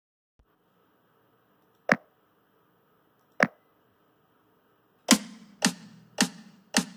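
Two single sharp clicks about a second and a half apart, then the Yousician app's metronome count-in: evenly spaced clicks a little under two per second, counting in the bass exercise.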